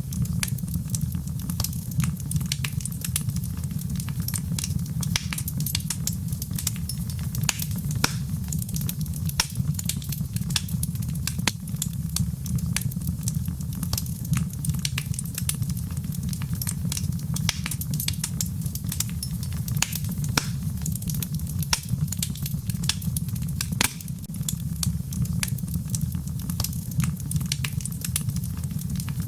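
Wood fire crackling with irregular sharp pops and snaps over a steady low rumble of the flames.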